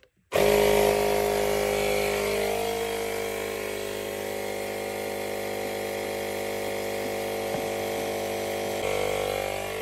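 Cordless electric air pump running steadily as it pumps air into the expansion vessel to recharge it to 3 bar. It starts abruptly just after the button is pressed.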